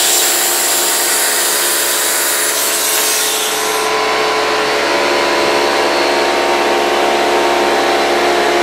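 Air compressor running with a steady hum while a blow gun blasts compressed air at a fidget spinner. The sharp hiss is strongest for the first few seconds, then eases off while the compressor keeps running.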